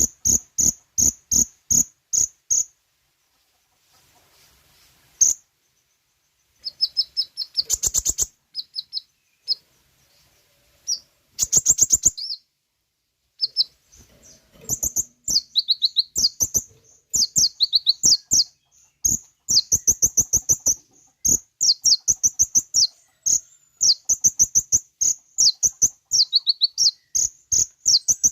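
Kolibri ninja (konin) sunbird singing: fast runs of sharp, high chirping notes. There are a few short pauses in the first half, then near-continuous song.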